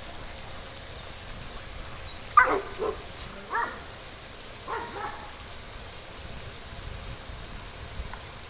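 Dogs barking during rough play: three short barks about two and a half, three and a half and five seconds in, the first the loudest.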